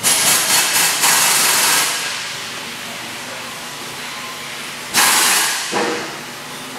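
Loud hissing in two bursts: one for about two seconds at the start, a second about five seconds in that fades out over a second, over a steady lower background hiss.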